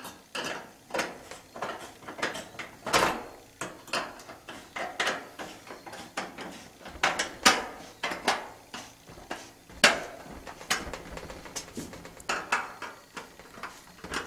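Metal chimney pipe being handled and fitted: a run of irregular metallic knocks, clicks and short scrapes, the loudest about 3, 7.5 and 10 seconds in.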